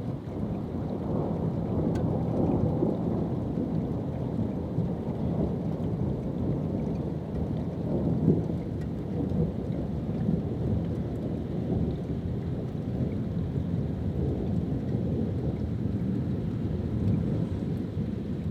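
Thunderstorm: long rolling thunder rumbling on and on with rain falling, swelling slightly about eight seconds in.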